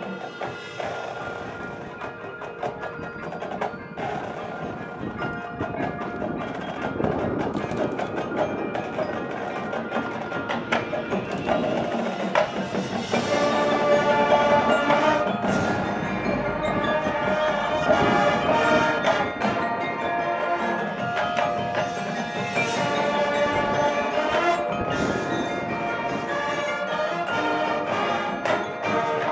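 High school marching band playing its field show, with winds and the front-ensemble mallet percussion (marimbas, xylophones, bells) standing out. The music swells louder about halfway through and stays full.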